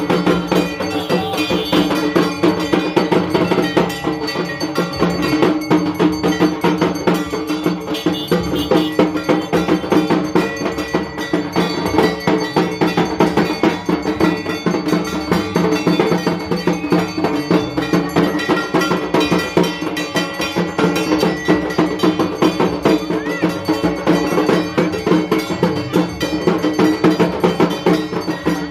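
Dhak drums beaten in a fast, unbroken rhythm of dense strikes, with a steady metallic ringing over the drumming.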